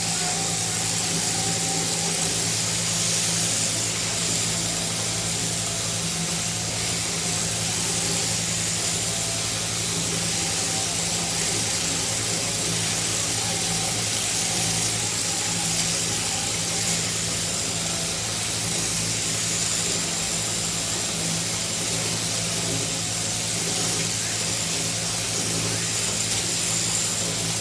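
Electric sheep-shearing machine, its handpiece driven from an overhead motor, running steadily while cutting through a sheep's fleece: a constant low hum with a thin high whine.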